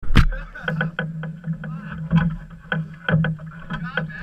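Small outboard boat on the water: irregular knocks and clicks of the hull and gear over a steady low hum, with a loud thump right at the start.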